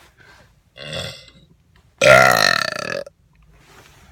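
A person burping: one loud, low belch about a second long, starting about two seconds in, with a shorter, quieter sound about a second in.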